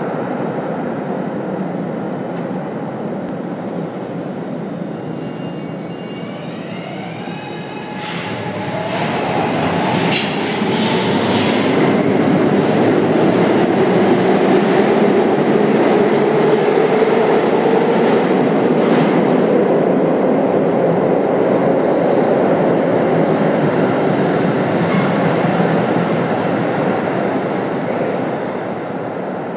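SEPTA Market-Frankford Line M-4 subway train pulling out of an underground station. Its electric motors whine rising in pitch as it starts. Then wheel clicks and a loud steady rumble build as the cars run past, easing off near the end as the last car leaves.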